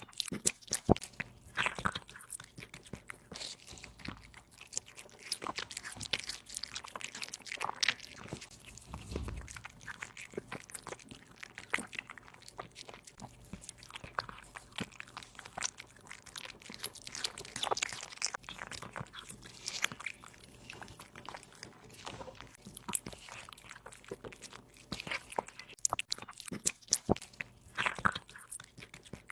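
A kitten chewing and biting into meat: irregular crunching clicks, several a second, with a short low thump about nine seconds in.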